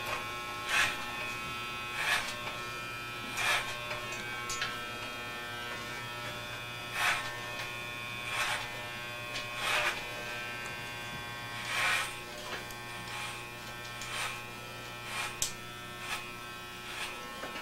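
Corded electric hair clippers buzzing steadily while cutting short hair, with short louder rasps every second or two as the blades pass through the hair.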